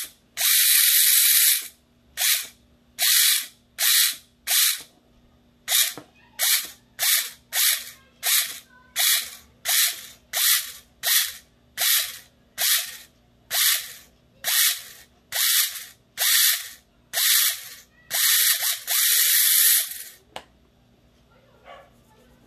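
Airsoft Ver3 gearbox with helical gears, driven by its electric motor and switched on and off over twenty times in short bursts, with a longer run at the start and another near the end. It is a test run of the freshly shimmed gear train under motor power. The bursts stop a couple of seconds before the end.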